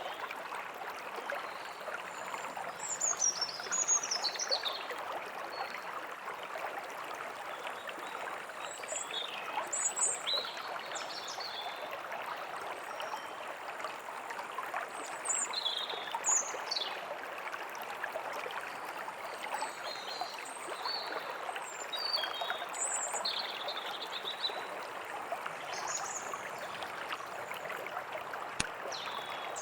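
A small stream babbling and trickling steadily, with songbirds chirping and trilling now and then over it. A single sharp click comes near the end.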